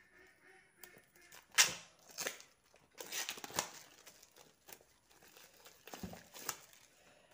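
Packaging of a smartphone box being torn open and crinkled by hand: a series of irregular tearing and rustling bursts, the loudest about one and a half seconds in.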